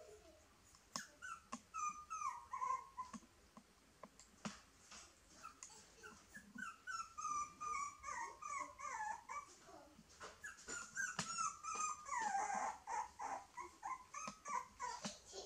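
Young puppy whimpering and whining: a long run of short, high-pitched whines, many sliding down in pitch, with a few light clicks among them.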